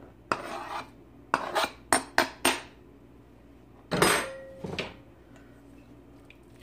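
Fork scraping shredded chicken off a plastic cutting board into a stainless steel Instant Pot insert, with five quick taps of utensil on board and pot. About four seconds in comes a louder metal clank with a short ring, then a smaller knock.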